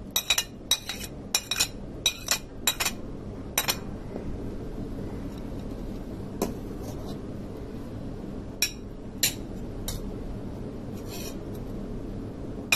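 Clinking against a ceramic plate as chopped onion and green chilli are tapped off it into the grinding bowl: a quick run of about nine sharp clinks over the first four seconds, then a few scattered knocks.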